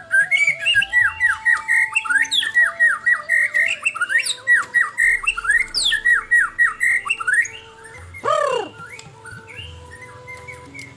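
White-rumped shama (murai batu) singing: a fast string of varied whistled notes, many sweeping down, then about eight seconds in one loud note that rises and falls.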